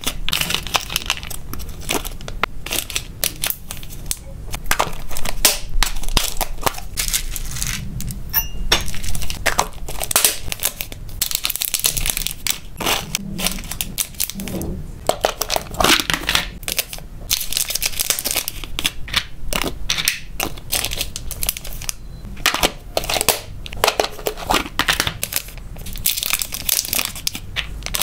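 Small plastic zip-lock bags of hamster treats crinkling and rustling as they are handled and unzipped. Dense, irregular crackles and clicks run throughout, with small dry treats clicking against the plastic.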